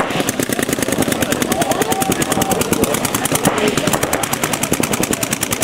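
Paintball markers firing rapidly and without let-up, a fast, steady rattle of shots.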